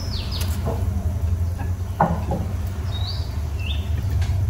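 A small bird chirping twice, short rising notes, over a steady low hum, with a single knock about two seconds in.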